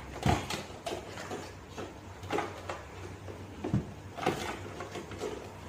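Packaging being handled: a few scattered knocks and light scrapes as a white packing insert is lifted out of a tall cardboard box and hands reach back inside it.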